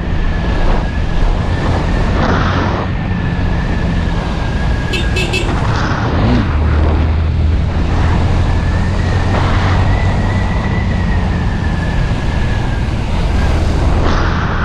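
Honda Twister 250 motorcycle's single-cylinder engine running steadily on the move, with a continuous low hum and road noise.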